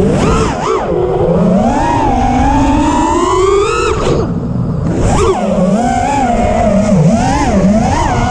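Armattan Rooster FPV quadcopter's brushless motors and propellers whining loudly, the pitch swooping up and down with the throttle: a long climb, a sudden drop about four seconds in, then a run of quicker rises and falls.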